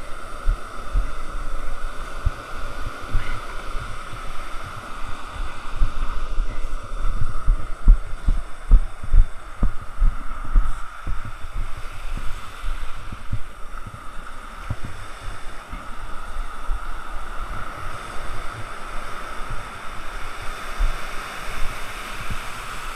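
Wind and waves on the microphone at the shore: irregular low thumps and rumble over a steady hiss of surf, the thumps strongest in the middle.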